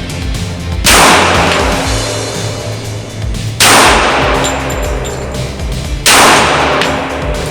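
Rock Island Armory 1911 pistol in .45 ACP firing three shots, about two and a half seconds apart, each with a short ringing tail, over background music with a steady bass line.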